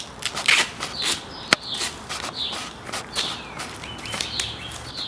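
Small birds chirping now and then, over scattered sharp clicks and rustling from objects being handled.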